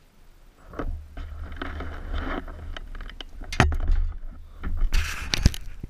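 Wind buffeting and rubbing on a helmet-mounted camera's microphone as the wearer moves about, with a low rumble, stretches of rustling, and several sharp knocks, the loudest about three and a half seconds in and again near the end.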